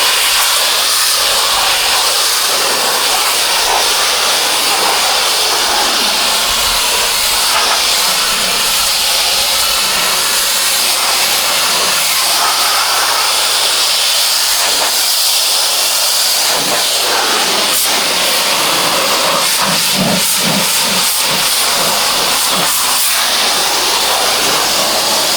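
Pressure washer jet spraying water: a loud, steady hiss of the high-pressure spray hitting the surface being cleaned.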